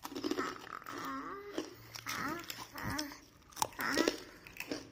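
A few sharp crunches of crisp, deep-fried garlic murukku being broken, the snack's crispness showing in the sound. Short, high-pitched gliding whines come between them.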